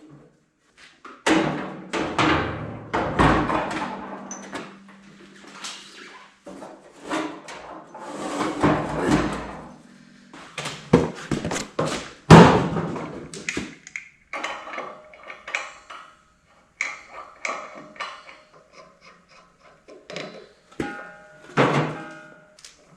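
Irregular metal clanks, knocks and scrapes as a gas cylinder and a scrap-steel welding cart are handled, with a sharp knock about twelve seconds in and a couple of ringing metallic knocks near the end.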